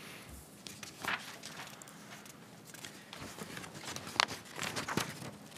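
Sheets of paper being shuffled and handled close to a desk microphone, in irregular rustles with a few sharp crinkles, loudest near the end.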